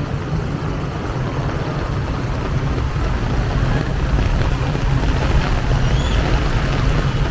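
Vehicle engines running in street traffic, a low steady drone, with heavy rain falling.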